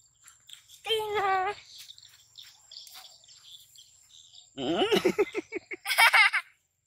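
A young animal's high, wavering squeal about a second in, then near the end a child's bubbling laughter in quick pulses.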